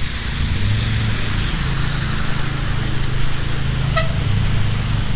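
City street traffic in snow: a steady hiss of tyres on the wet, slushy road with low engine rumble. A single short car-horn toot comes about four seconds in.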